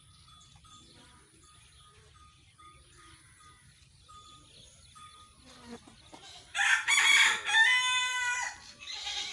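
A rooster crows once, a loud call of about two seconds starting about two-thirds of the way in, its drawn-out end held on one pitch. Before it, a small bird chirps faintly over and over, about twice a second.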